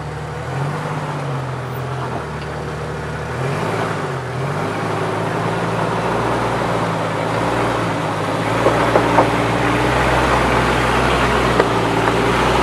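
Jeep Wrangler TJ engine running at low speed as it crawls over rocks, the revs rising and falling a few times in the first few seconds and then holding steady. A few short sharp knocks come a little past the middle.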